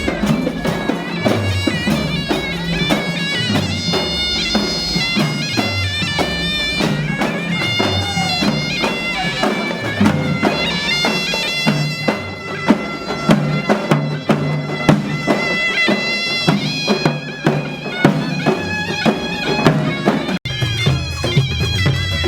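Live band music: a reedy wind-instrument melody over steady drum beats and bass, with a brief dropout about twenty seconds in.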